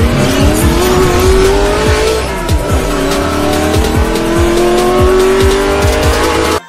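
Car engine accelerating hard as a sound effect, its pitch rising, falling back at a gear change about two and a half seconds in, then rising again, over music with a steady drum beat. Both cut off suddenly near the end.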